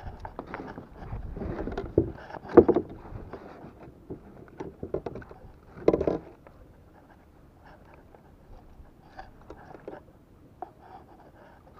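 Landing net holding a freshly caught fish being handled against a kayak's hull: irregular knocks and scrapes, the loudest about two and a half and six seconds in. After that only scattered light clicks as pliers work at the hook.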